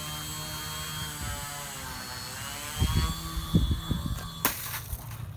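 Small RC plane's electric motor and propeller whining, holding pitch, then dipping and rising again as the throttle is worked, with a few low thumps. About four and a half seconds in there is one sharp impact and the motor whine stops.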